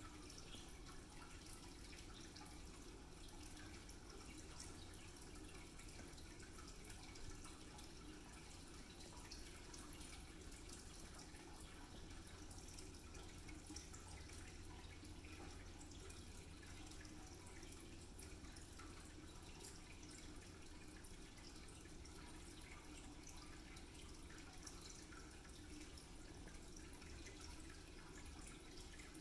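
Cat licking and grooming itself after eating treats: faint, irregular wet licking clicks over a low, steady room hum.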